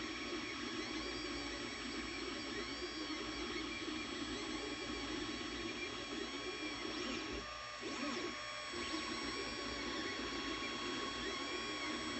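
Anycubic Mega Zero 3D printer running a print: a steady mechanical hum from its stepper motors, with repeated rising-and-falling whines as the print head and bed move, and brief pauses in the hum about seven and a half and eight and a half seconds in.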